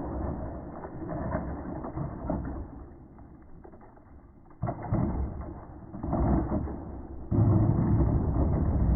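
Traxxas Sledge Hammer RC monster truck running on a 3S battery over asphalt, heard as uneven surges of rumbling noise, with three strong bursts in the second half.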